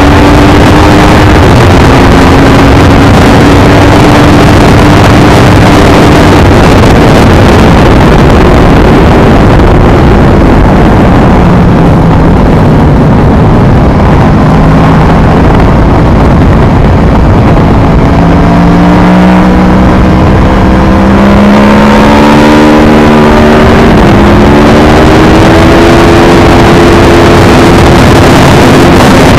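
Aprilia Tuono V4R's 1000 cc V4 engine under way, heard from on the bike over heavy wind noise. Its pitch sinks to its lowest around the middle as the bike slows, then climbs again as it accelerates.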